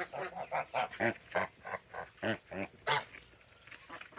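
Domestic geese and ducks giving short, repeated calls, two or three a second, which die away about three seconds in.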